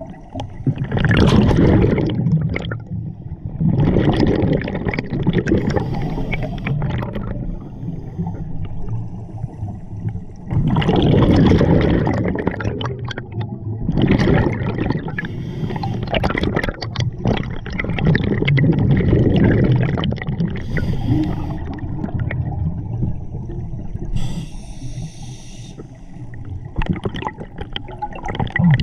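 Underwater breathing of a scuba diver through a regulator. The exhaled air gurgles out as bubbles in long bursts every few seconds, with quieter stretches between breaths.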